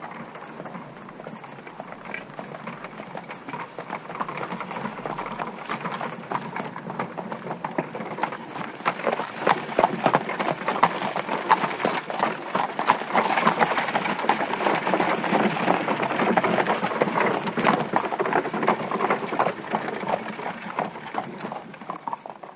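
Hooves of galloping horses: a dense clatter of hoofbeats that builds over the first ten seconds or so, stays loud, then fades near the end.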